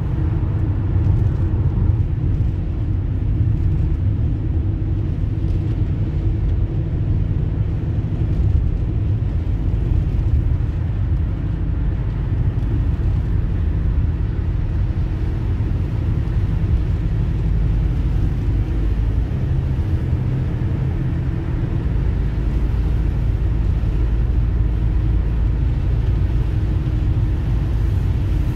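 Steady low rumble of a car cruising at motorway speed, heard from inside the cabin: tyre, road and engine noise. The deepest part of the rumble grows a little stronger about three-quarters of the way through.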